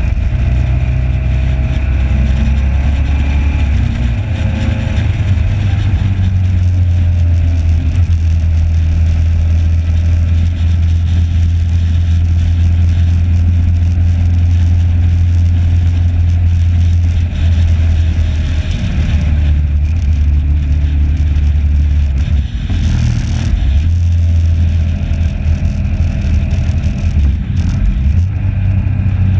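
Onboard sound of a motorcycle at track speed: heavy, steady wind rumble on the microphone with the engine running underneath. A brief louder rush of hiss comes a little after three-quarters of the way through.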